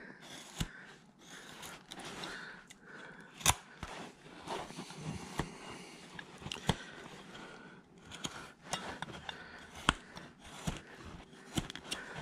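A carving knife cutting into a wood block: irregular slicing strokes with sharp clicks as wood chips break away. The two loudest snaps come about three and a half seconds in and just before ten seconds.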